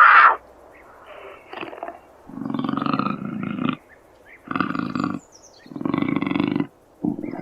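Puma calling: a short high-pitched cry at the start, then three lower, longer calls of about a second each, separated by short pauses.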